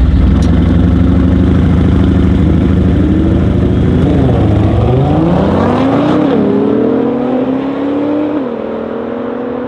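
A Mercedes-AMG S63 coupé's biturbo V8 through an Akrapovic exhaust, together with a Nissan GT-R R35's twin-turbo V6, running loud and steady on the drag strip start line, then launching about four seconds in. The engine note dips and climbs as they accelerate away, with two upshifts about two seconds apart.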